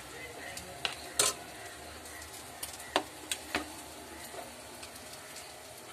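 A spoon stirring and scooping cooked biryani rice in a pot, knocking against the pot with a few sharp clicks about a second in and again around three seconds, over a faint steady hiss.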